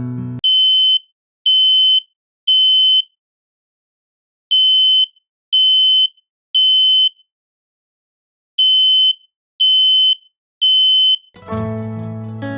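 Smoke alarm sounding in the temporal-three pattern: three high, single-pitched beeps about half a second each, a longer pause, and the group repeated three times. This is the standard fire-evacuation signal. Acoustic guitar music cuts off as the beeps begin and comes back near the end.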